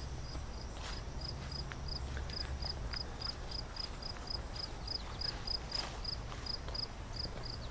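An insect chirping steadily in the grass, short high chirps a little over three a second. Occasional soft footsteps on grass are heard under it.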